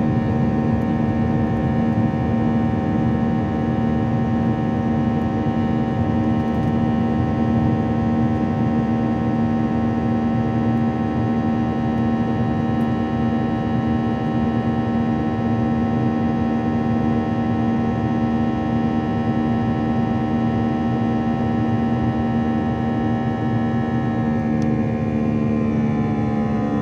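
CFM56-5B turbofan of an Airbus A321 at takeoff thrust, heard inside the cabin beside the engine: a loud, steady buzz made of many stacked tones over a rush of noise. Near the end the tones shift lower as the engines are throttled back from takeoff power for the climb.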